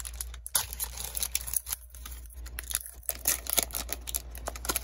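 Foil wrapper of a Panini Prizm trading-card pack crinkling and tearing as it is pulled open by hand: a run of irregular crackles and rips.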